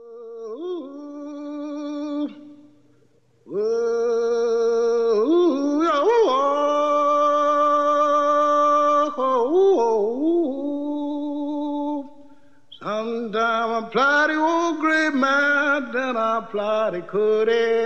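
A lone voice singing an unaccompanied, blues-style song, with long held notes that waver and slide between pitches. It breaks off briefly twice, a couple of seconds in and again about twelve seconds in.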